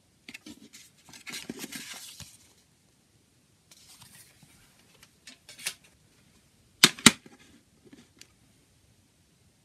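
Paper rustling as a CD booklet is handled and put away, then two sharp clacks of a plastic CD jewel case being set down on a table, the loudest sounds, followed by a few light taps.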